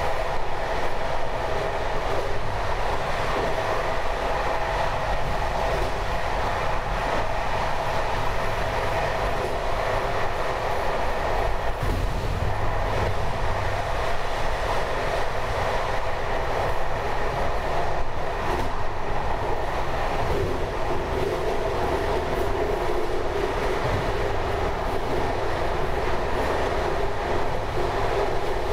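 A train running steadily along the track: a continuous rolling noise of wheels on rail, with a faint steady humming tone in it.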